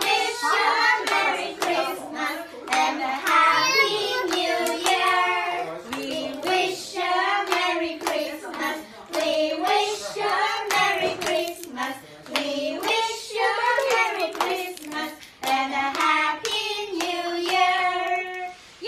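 A group of young girls and a woman singing a song together while clapping their hands along to it; the claps are sharp and frequent throughout.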